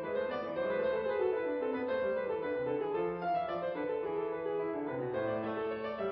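Background instrumental music: a melody of held, pitched notes that change about every half second.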